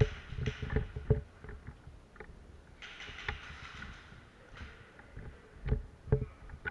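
Irregular heavy thuds, several close together near the start and two more near the end, with a stretch of rustling about three seconds in and a few faint sharp clicks: a player moving on foot with their gear during airsoft play.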